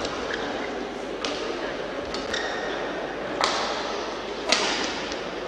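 Badminton rally: racket strings striking the shuttlecock about once a second, with a shoe squeaking on the court after the second hit. A steady murmur of voices fills the large hall.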